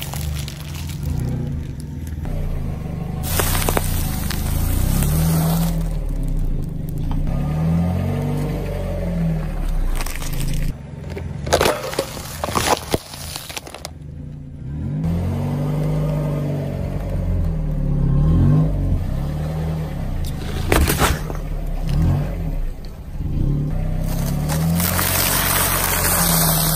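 A car creeping forward with its engine running low while its tyre rolls over and crushes snacks and small objects on asphalt, including a tube of crisps and a stack of wafer biscuits. Crunching and crackling, with several sharp cracks.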